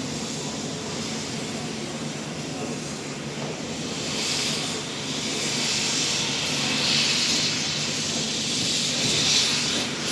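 P36 steam locomotive hissing steam, a steady rush that swells louder three times in the second half.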